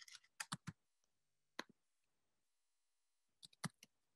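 Faint computer keyboard keystrokes, isolated key clicks: a cluster of about four in the first second, a single one in the middle, and three more near the end, with near silence between.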